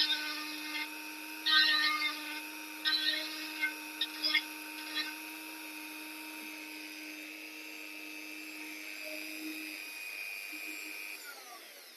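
High-speed rotary carving tool running with a steady whine, its burr rasping into ash wood in short bursts during the first few seconds, then winding down near the end.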